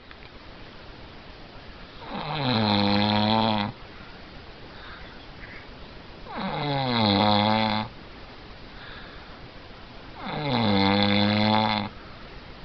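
A man snoring loudly: three long, pitched snores about four seconds apart, each dropping in pitch at the start and then holding steady.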